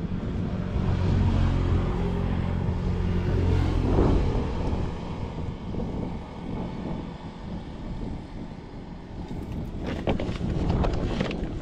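A boat engine running steadily, its low hum strongest for the first few seconds and then fading, with wind buffeting the microphone.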